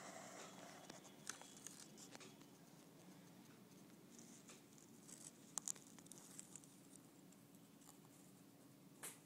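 Faint handling noise: scattered small clicks and rustles of a phone camera being moved and brushed against a cardboard model set, over a faint steady room hum. The loudest clicks come just past the middle and again near the end.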